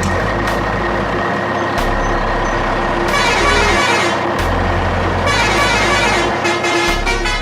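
Electronic background music with a stepping bass line and held synth chords that thicken about three seconds in.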